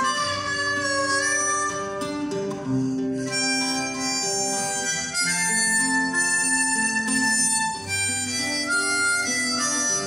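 Harmonica playing a melody of held notes over two strummed acoustic guitars: the instrumental introduction of a folk-style song.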